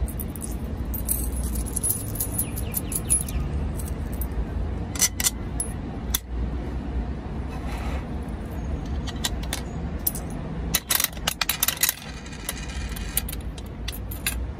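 Toy gumball machine's metal coin-and-crank mechanism being worked by hand: scattered metallic clicks and clinks, with a quick run of clicks about five seconds in and a denser run about eleven seconds in as the crank is turned.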